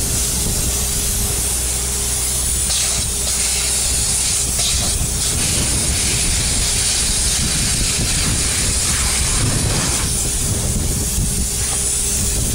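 Spray polyurethane foam gun hissing steadily as it sprays foam onto a roof parapet wall, over a steady low hum.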